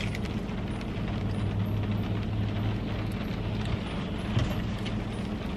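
Steady noise inside a parked car's cabin: the engine idling with a low, even hum, and rain hissing on the roof and windows.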